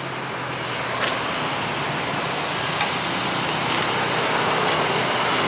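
Mercedes-Benz coach bus idling while parked, a steady hiss of engine and running machinery that grows slowly louder, with a few faint clicks.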